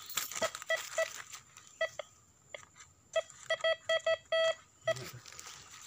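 Metal detector beeping over a dug hole in the soil. Short single beeps come here and there, then a quick run of about six beeps halfway through, the last held a little longer. This is the detector's signal that metal is in the soil under the coil.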